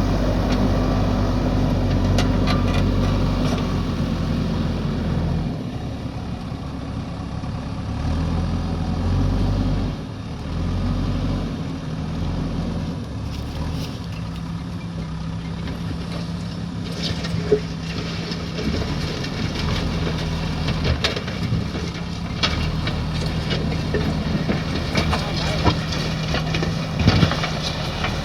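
Diesel engine of a JCB backhoe loader running under changing load, rising and falling every few seconds, with scattered sharp knocks, more of them in the second half.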